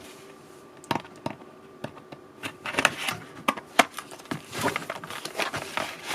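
Product packaging being opened and handled by hand: irregular clicks, taps and short rustles as the box is opened and its contents are taken out.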